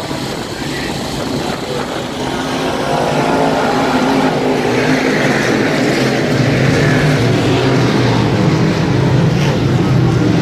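Several dirt-track sportsman modified race cars' V8 engines running together, growing louder about three seconds in.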